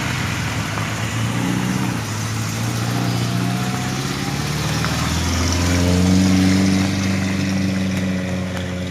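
Off-road 4x4 jeep engine revving as it drives through the river, its pitch climbing and growing loudest a little past the middle.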